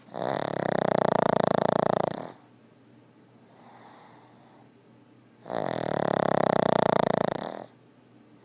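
Pug snoring loudly: two long snores of about two seconds each, with a fast flutter, one at the start and one just past the middle, and a faint breath out between them.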